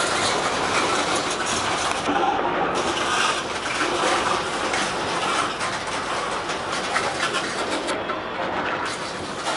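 Freight train of tank cars rolling past close by, a steady rumble with the clatter of steel wheels on the rails.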